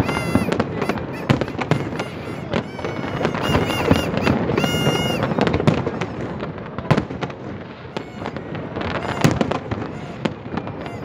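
Fireworks show: aerial shells bursting in a dense run of bangs and crackles, with shrill whistling tones near the start and again about four to five seconds in.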